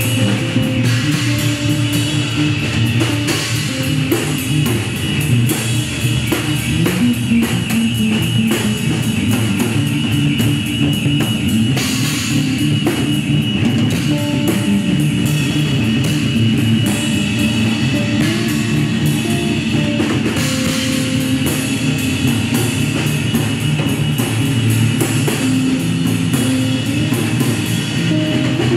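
Live improvised music from a trio of six-string electric bass, drum kit and electric guitar, playing continuously: held bass notes and a sustained high tone over busy drumming with cymbals.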